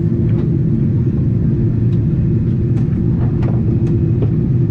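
Cabin noise inside a Boeing 777-300ER during the approach: a steady, loud low rumble of the engines and airflow, with a few faint clicks in the middle.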